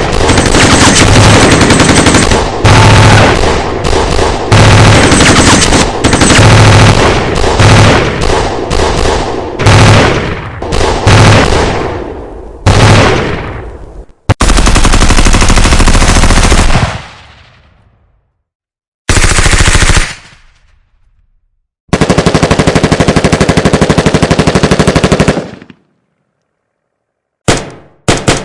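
Machine-gun fire in several long bursts of rapid shots separated by short silences, with a few single shots near the end.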